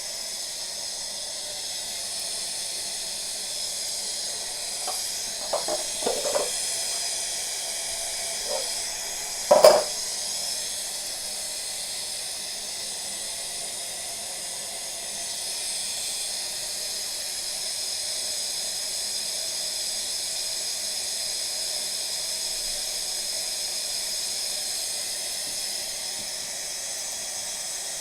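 Steady hiss of air escaping from a water heater tank's open line as the tank fills with water, pushed out ahead of the incoming water. A few light knocks come about five to six seconds in, and a sharper knock about ten seconds in.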